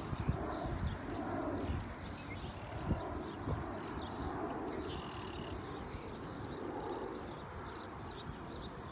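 Outdoor field ambience: irregular low rumbling bumps on the microphone under a run of short high chirps, about two a second.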